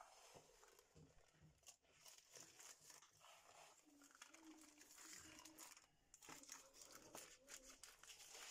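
Faint crinkling and soft scattered clicks of hands pressing shortcrust pastry dough into a tart tin.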